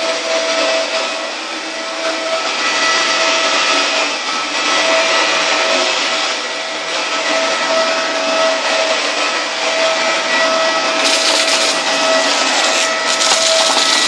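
Dyson DC24 Multi Floor upright vacuum cleaner running on carpet: a steady rush of air with a constant motor whine. About eleven seconds in, the hiss turns brighter and a little louder.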